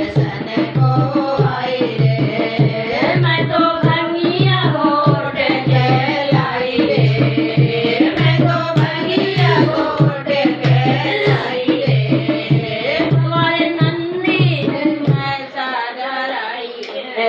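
Women singing a Hindi devotional bhajan to Shiva, over a dholak barrel drum played by hand in a steady beat of a bit more than one stroke a second. The drum stops near the end while the singing goes on.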